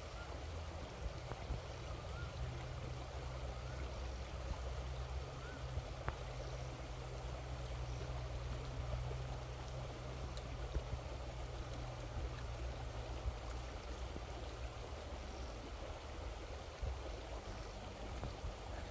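Steady rushing outdoor background noise with a few faint chirps in the first few seconds and occasional soft crunches of someone eating fresh lettuce.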